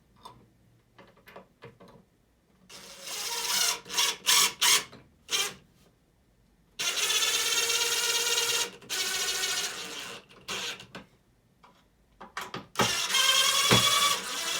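Cordless drill with a Phillips bit driving bolts into plywood, running in several bursts with short stop-start pulses between them.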